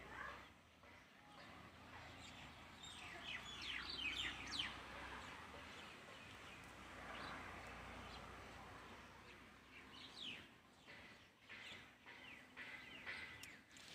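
Birds chirping in bursts of short, quick downward-sliding notes, loudest around four seconds in and again near the end, faint against a soft background hiss.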